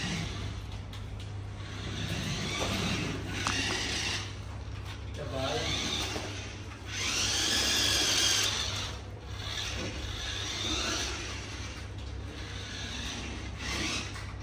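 Small electric motor and plastic gearbox of a battery-powered remote-control toy car whirring in repeated spurts as it is driven back and forth over tiles, each run lasting a second or two, the loudest about eight seconds in.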